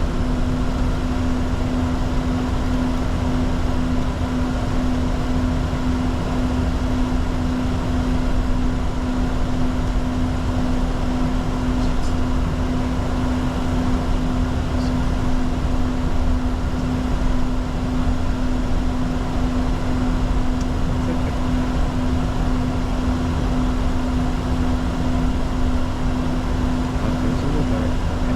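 Steady cabin noise in the cockpit of a Bombardier Challenger 604 business jet: engine and airflow noise with a constant low hum that holds at one level throughout.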